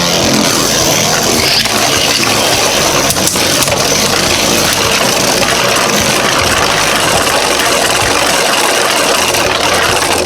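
Two Beyblade Burst tops with 3D-printed metal upgrades spinning in a stadium: a steady, loud whirring rattle as they grind and skid against each other, with a few sharper knocks where they collide.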